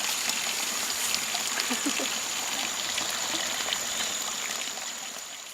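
Stream water running steadily, with a thin steady high-pitched tone above it. The sound fades down over the last second.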